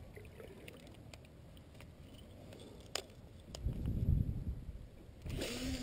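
Quiet open-air ambience on a small boat on a lake, with two light clicks about three seconds in, then a low rumble lasting about a second and a short rush of noise near the end.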